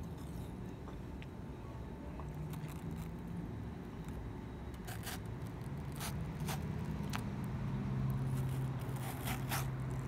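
Metal spoon scooping and scraping into the flesh of a halved watermelon, with several sharp clicks in the second half, over a low steady hum.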